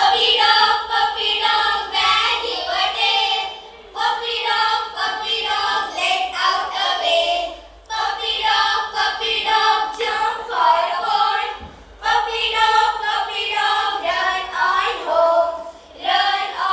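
Children singing a song together, in phrases of a few seconds each with short breaks between them.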